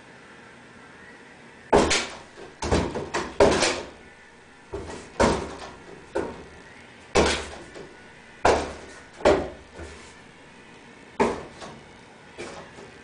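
Closet doors banging and rattling as a cat leaps and slaps its front paws against them: about a dozen sharp knocks at uneven intervals, some in quick pairs.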